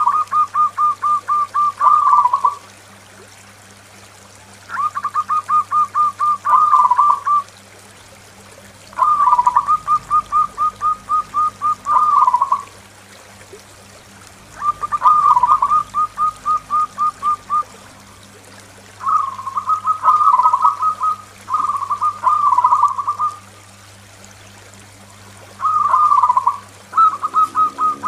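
Zebra dove (perkutut) singing its cooing song. There are six phrases, about one every five seconds, and each is a quick run of rapid coos lasting two to four seconds.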